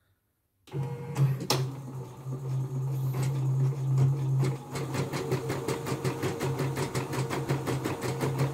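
CNY E960 computerised embroidery machine starting a test stitch-out about a second in: a steady motor hum with one click, then regular rapid needle strokes, about six stitches a second. The machine had been jamming and is now running after repair.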